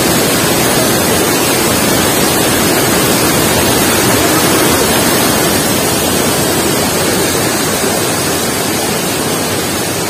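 Waterfall rushing over rock ledges into churning white water, a loud steady rush close to the microphone, easing slightly near the end.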